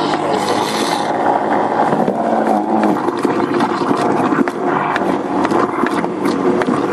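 Garbage disposal used as an apple grinder, running and grinding quartered apples: a steady motor hum with many sharp clicks and knocks from apple chunks in the grinding chamber.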